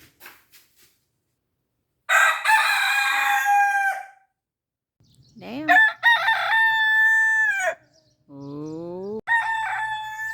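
A young cheonggye rooster (green-egg chicken) crowing three times while his voice is breaking. Each crow is long and holds its pitch before dropping off at the end. A low rising note leads into the third crow.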